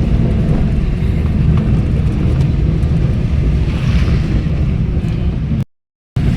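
Loud wind buffeting the microphone, a steady low rumble. It cuts out to silence for about half a second near the end.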